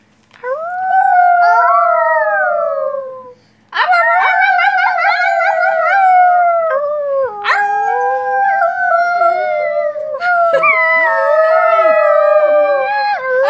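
A dog howling in about four long, drawn-out howls, each about three seconds long and sliding slowly down in pitch, with short breaks between them.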